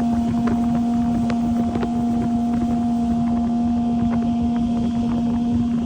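60 hp Mercury outboard running at low speed, with a steady hum-like tone over the rumble of the motor and wind noise. The engine is overheating, which the crew put down to a failed water pump.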